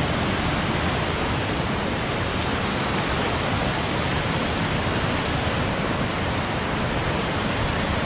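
Waterfall's rushing water: a steady, even noise with no breaks.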